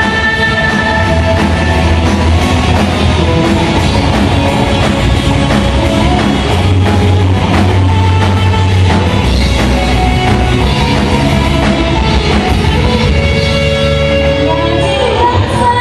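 Live rock band playing loud, with electric guitar, bass guitar and drum kit and a heavy low end. A female voice sings near the end.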